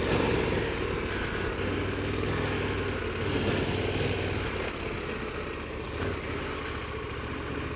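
Adventure motorcycle engine running steadily under way, with road and wind noise, while the rear tire is losing air; the rider describes the bike as having some odd sound.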